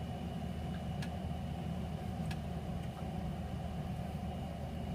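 Steady low room hum with a faint high tone, broken only by two faint clicks.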